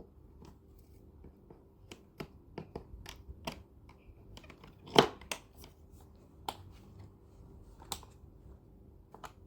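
Scattered light clicks and knocks of trolley parts being handled and fitted together by hand during tool-free flat-pack assembly, the loudest knock about halfway through.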